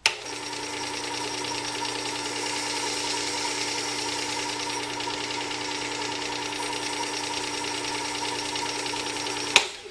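Work Sharp 3000 sharpener's motor driving the abrasive belt of its belt sharpening attachment: switched on with a click, runs with a steady hum and belt hiss while the belt tracking is set, then switched off with a sharp click near the end.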